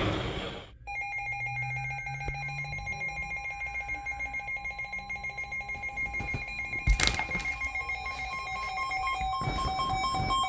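Emergency alert attention tone: steady high-pitched tones with a fast ringing flutter that start abruptly about a second in, with a second tone joining about a second later. There is a sharp click partway through.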